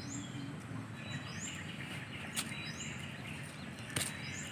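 Short rising bird chirps repeating about once a second over a steady outdoor background hiss, with a sharp click about four seconds in.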